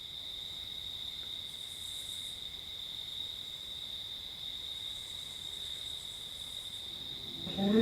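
Crickets chirring in a steady, unbroken high-pitched chorus. Just before the end, a short, louder pitched sound cuts in.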